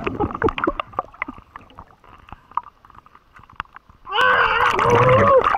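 Bubbling water and scattered small clicks heard underwater as a spearfisher rises with a speared grouper; about four seconds in, as the diver breaks the surface, a loud wavering voiced cry lasting about a second and a half.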